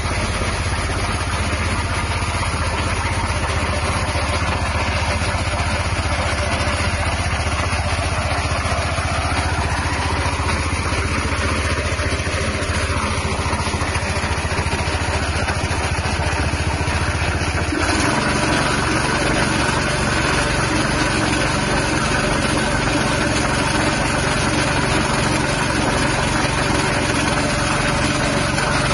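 A 5.5 hp petrol engine running steadily, driving a horizontal screw-type pellet extruder as feed mash is pushed through its die. The engine's note changes about two-thirds of the way through.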